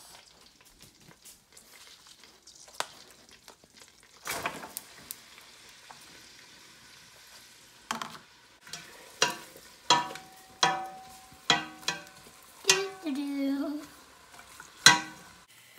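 Chopped onions sizzling in melted butter in a stainless steel pot, with a steady hiss starting about four seconds in. In the second half a wooden spoon stirs them, knocking against the side of the pot about once or twice a second.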